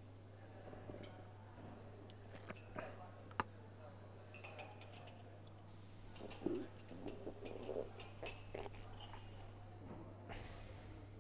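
Quiet canteen room tone with a steady low hum, scattered faint clinks and knocks of crockery and a cup on a wooden tabletop. Near the end a short rustling rub as the camera is moved against clothing.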